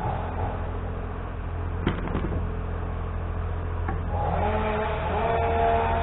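A motor spinning up twice, its pitch rising and then holding, over a steady low hum; two sharp knocks come about two seconds in.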